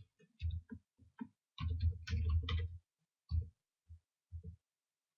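Computer keyboard being typed on, short irregular runs of key clicks with brief pauses between them.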